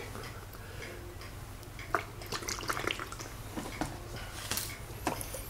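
Water-filled soft punch ball being squeezed and kneaded by hand close to the microphone: irregular wet squelches and little crackles.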